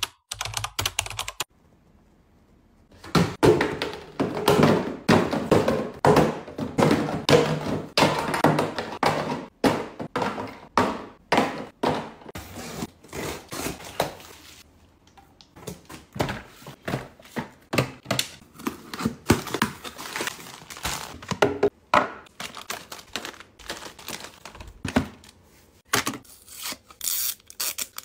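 Hands handling and opening cardboard parcels and packaging: a rapid run of taps, knocks, rustles and tearing, with a short lull about halfway.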